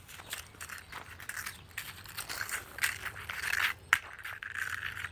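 Loose metal screws and nails clinking and rattling against each other as they are gathered up, with scraping and many small sharp clicks; one louder click about four seconds in.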